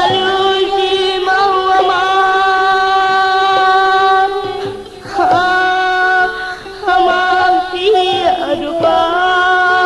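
Sumatran music from an old cassette recording: a singer draws out long held notes, each sustained for several seconds with short breaks between them.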